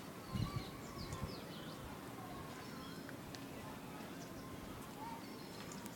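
Faint birds chirping in the background, in short scattered calls, with a few soft low thumps in the first second or so.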